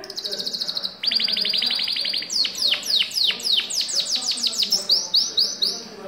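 Scotch Fancy canary singing a loud, rapid song: a high trill, then a faster run of repeated notes, then a string of sharply falling whistled notes, about four a second, ending in a few short rising-and-falling notes.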